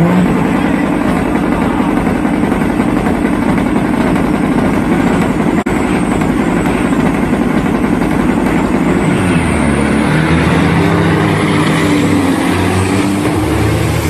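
Big-rig semi-truck diesel engines revving hard, loud and rough. About two-thirds of the way through a deeper, steadier engine note takes over.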